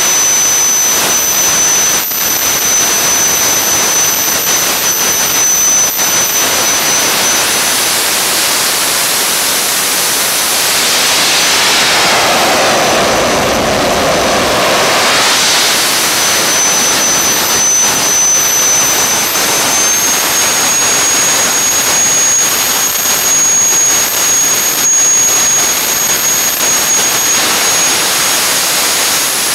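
Small turbojet engine on a trailer test rig running at full throttle, at about a 4:1 compressor pressure ratio: a loud, steady rushing noise with a thin high whine on top. About two-thirds of the way through the whine steps up slightly in pitch, and for a few seconds in the middle the rushing noise changes colour.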